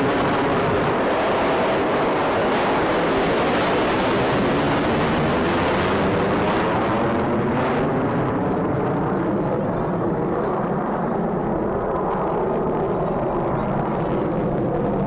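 F-22 Raptor's twin F119 turbofan engines running loud as the jet flies by, a dense jet roar with a sweeping, phasing tone through it. From about halfway through the high hiss fades, leaving a lower rumble as the jet draws away.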